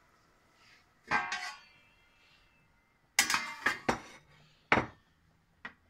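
Stainless-steel cookware clinking and clattering as it is handled: a clatter about a second in, a run of ringing clanks around three seconds in, and two single clinks near the end.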